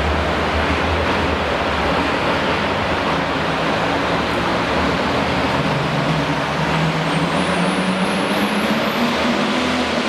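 The turbocharged diesel engine of a John Deere Super Farm pulling tractor runs at the start line over steady rushing arena noise. From about six seconds in its pitch climbs as the engine speeds up, and a faint high whine rises with it near the end.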